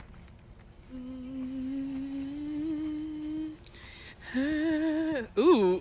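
A woman humming: one long steady note that creeps slightly upward, then a shorter wavering hum and a quick rising-and-falling vocal swoop near the end.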